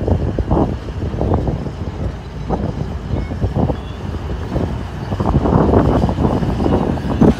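Cat 966F wheel loader's diesel engine working as its raised bucket dumps rock into a dump truck bed, a low rumble broken by irregular knocks and clatter that grow louder about five seconds in.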